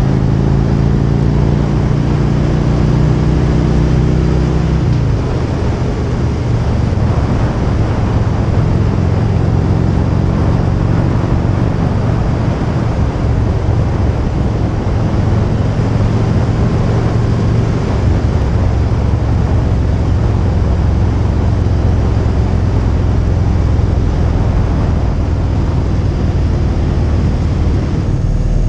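Motorcycle engine running under way, with a steady rush of wind over the camera. The engine note drops about five seconds in, then holds steady.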